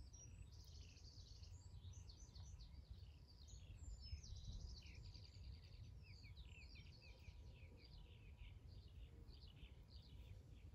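Several small songbirds chirping and singing faintly, many quick sliding notes with two rapid trills, over a steady low rumble.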